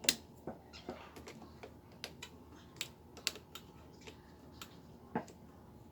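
Scattered small metallic clicks and ticks, irregular, with one louder knock about five seconds in: a steel spring clip (lock spring) on a motorcycle's brake caliper being worked loose and pulled out with a hand tool.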